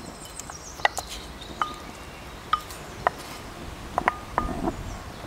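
A white bowl and a wooden spoon clinking against each other and against a cast iron pan as prawn shells are scraped out into the stock: about a dozen irregular sharp clinks, several ringing briefly.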